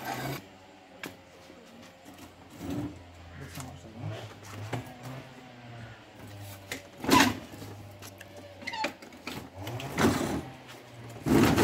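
A scooter being pushed and manoeuvred by hand, with several loud clunks about seven, ten and eleven seconds in as it is set on its stand, over a low steady hum.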